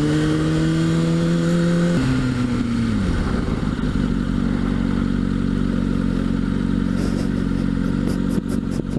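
Kawasaki Ninja ZX6R sport bike's inline-four engine rising in pitch under acceleration. About two seconds in the revs drop sharply, and the engine then runs at a steady lower note while cruising.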